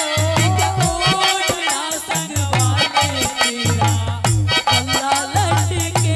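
Live Haryanvi folk ragni accompaniment: a harmonium melody over a steady dholak beat, with a quick, even jingling rattle keeping time.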